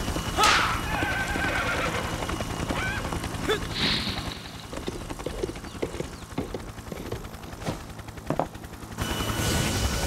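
A horse whinnying, a loud call with falling, wavering pitch about half a second in, followed by shorter snorts and then hooves clip-clopping.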